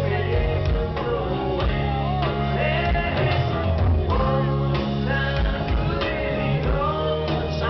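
Live rock band playing, with electric guitars, bass and drums and a lead vocal line.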